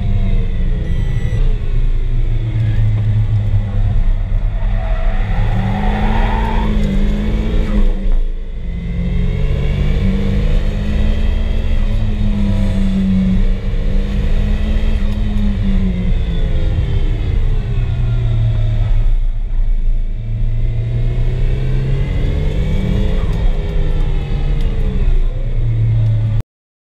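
Turbocharged SR20DET inline-four engine of a Nissan 240SX heard from inside the cabin under hard track driving, its pitch repeatedly rising and falling through acceleration and corners. It briefly drops off about eight seconds in and again around twenty seconds in, and the sound cuts off suddenly near the end.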